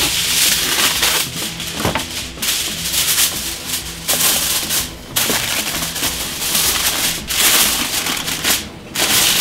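A sheet of aluminium foil crinkling and crackling as it is pressed over a foil pan and its edges crimped down by hand. The sound is irregular and loud, with a couple of brief pauses.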